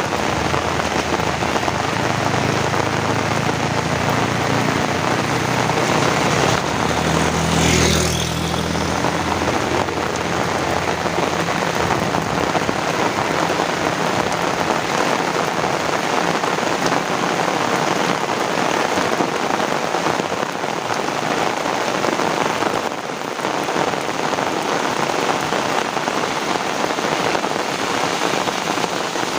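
Heavy rain falling steadily, a dense even hiss of drops. A low rumble underlies the first third and fades out about eight or nine seconds in.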